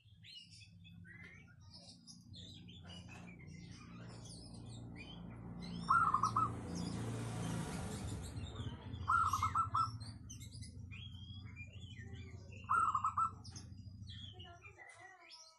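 Zebra dove (perkutut) cooing three times, about three seconds apart; each call is a short, quick run of pulsed notes. Other small birds chirp faintly throughout, over a low steady hum that fades out near the end.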